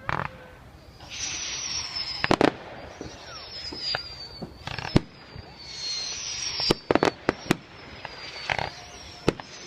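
Fireworks going off: repeated sharp bangs and cracks, with several high whistles, each sliding slightly down in pitch for about a second, over a hissing crackle.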